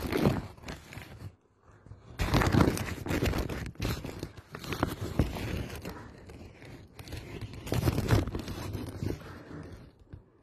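Rustling and crinkling of a rice sack and the grains inside it being handled, in four bouts with short lulls between.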